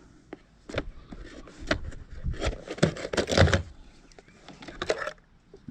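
Handling noise from unpacking a keyless door lock from its box: a string of clicks and knocks with rustling of the packaging, busiest in the middle.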